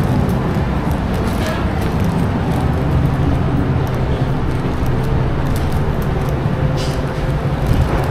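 Street traffic: vehicle engines running with a steady low hum.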